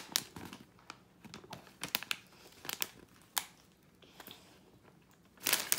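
Plastic snack bag crinkling as it is held and handled, in scattered crackles that thin out, then a louder run of crinkling near the end.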